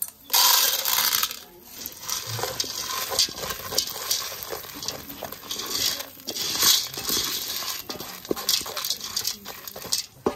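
Dried corn kernels rattling into a hot aluminium pot, loudest in a dense burst about half a second in. Then a wooden spoon stirs them, with the kernels scraping and clicking against the metal bottom.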